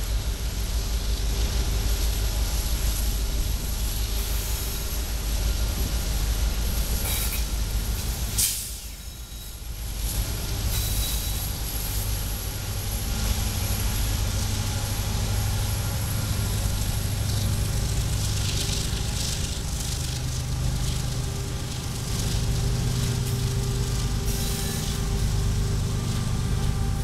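Union Pacific diesel freight locomotives, an EMD SD70ACe and GE units, passing close by with their engines running as a steady low rumble. About eight seconds in there is a sharp click, and the rumble eases briefly before it builds again.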